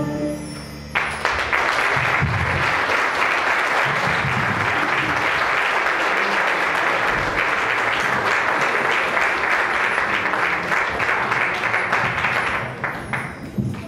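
The last sustained chord of a song dies away in the first second. Then the congregation applauds with dense clapping, which thins out near the end.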